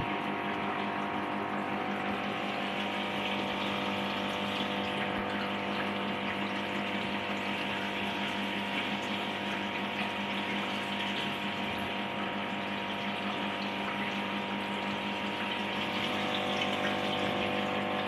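Aquarium filter pump running with a steady hum, its return water splashing and trickling into the tank surface.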